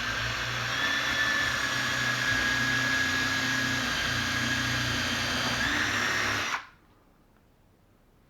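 Electric drill boring a hole into the wooden drawer front through a drilling jig, its motor whining at a steady speed, then cutting off suddenly about six and a half seconds in.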